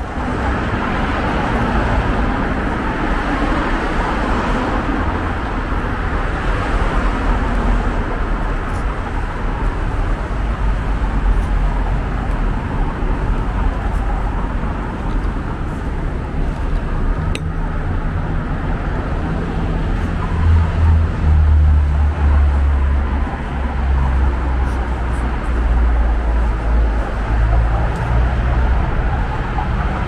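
Steady road traffic noise from a busy city street, cars passing continuously. A deep low rumble swells about two-thirds of the way through and then eases off.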